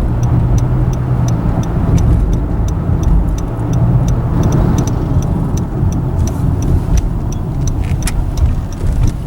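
Car driving on the road, heard from inside the cabin: a steady low drone of engine and tyre noise, with a light, regular ticking about twice a second.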